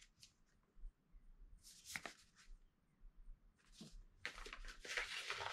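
Paper packaging and craft papers being handled: a few soft rustles with a light tap about two seconds in, then steady paper rustling and sliding from about four seconds in.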